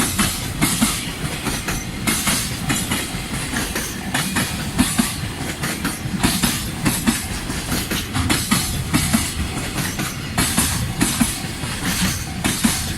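Freight wagons of a long, slow-moving freight train rolling past, their wheels clacking over the rail joints with repeated clicks about one to two a second over a steady rumble.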